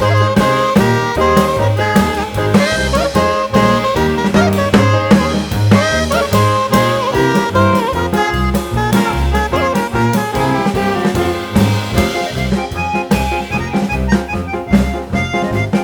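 Background music: jazzy tune with saxophone or brass over a steady drum beat.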